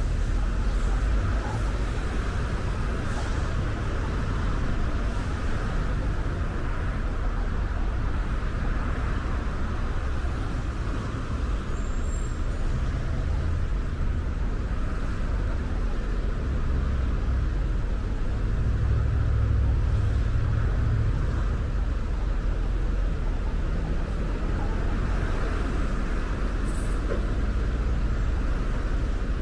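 Steady road noise of a car driving, a continuous low rumble of tyres and engine.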